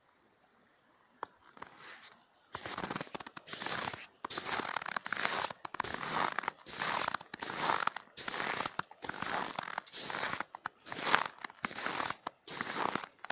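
Footsteps crunching on snow and ice, about one step a second, starting a couple of seconds in.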